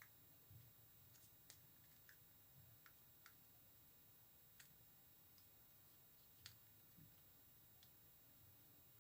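Near silence with faint, scattered small clicks and taps: hands and a modelling tool pressing together pieces of biscuit (cold-porcelain) clay.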